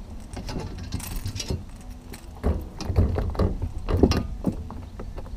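Irregular knocks, taps and rattles on a bass boat's deck while a small bass is handled and laid on a measuring board, the loudest knocks coming about three to four seconds in.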